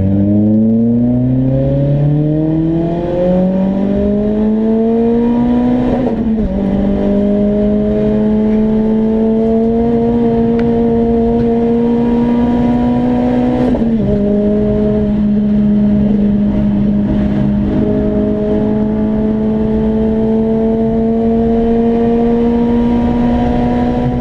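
Renault Clio RS track car's engine pulling hard at full throttle, heard inside its stripped, roll-caged cabin: the revs climb steeply, drop sharply as it shifts up about six seconds in and again about fourteen seconds in, and climb slowly in the higher gears, over steady road and tyre noise.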